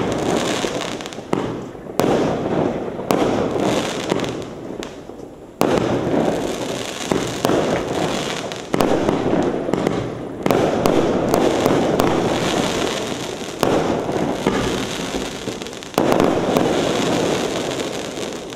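Rampaging Warlord 42-shot firework barrage cake firing: a sharp bang roughly every one to two seconds, each followed by a dense crackle from the crackling star effects. The crackle fades out near the end.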